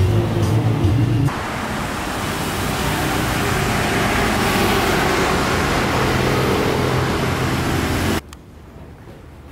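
Amplified karaoke music through a loudspeaker for about the first second, then steady road traffic as cars and motorcycles drive past. The traffic cuts off suddenly near the end, leaving much quieter ambience.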